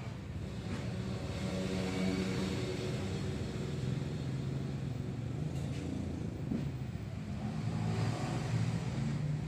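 Road traffic: motor vehicle engines running and passing, a steady rumble whose pitch shifts, louder about two seconds in and again near the end.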